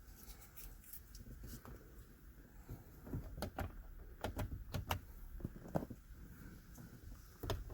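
Scattered light clicks and taps from small objects being handled, about a dozen short ticks, most of them in the middle of the stretch.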